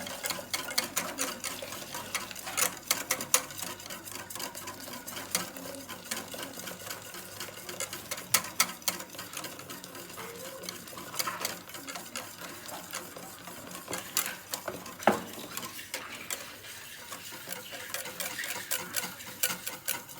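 A utensil stirring a liquid custard mixture in a bowl, with irregular clicks and scrapes against the side of the bowl as the hot milk is mixed into the eggs, cornstarch and lemon juice for a lemon pastry cream.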